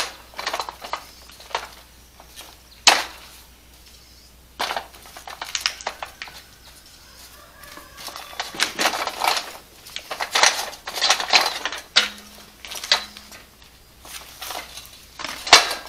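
Irregular metal clinks and knocks from a hang glider cart's frame being handled as it is taken apart and its corner pins are worked out. Chickens cluck in the background.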